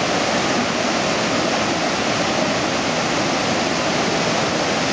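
Floodwater from an overflowing reservoir rushing and churning over its spillway in white water, a steady, loud rushing noise.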